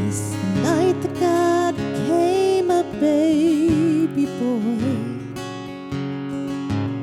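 A slow worship song: acoustic guitar strumming steady chords under a sung melody that holds long notes with vibrato, the melody dropping out near the end.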